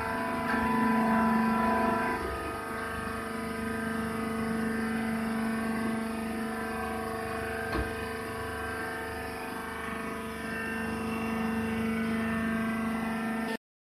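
Steady hum of a rice husk baler's hydraulic power unit running, with one faint tick about eight seconds in. The sound cuts off abruptly just before the end.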